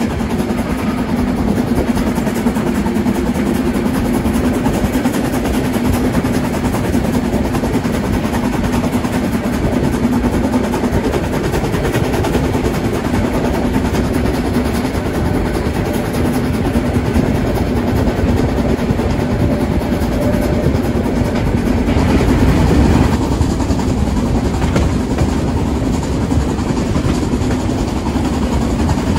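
Train running steadily, a loud continuous rumble with a low hum, swelling briefly about 22 seconds in.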